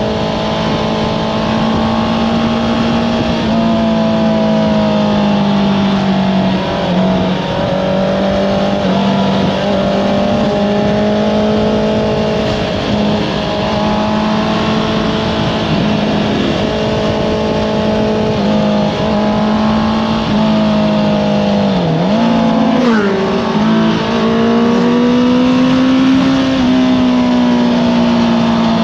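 Honda CBR650R inline-four with an Akrapovič exhaust running under way at a fairly steady pitch, rising and falling a little. About 22 seconds in the pitch drops briefly and then climbs back up.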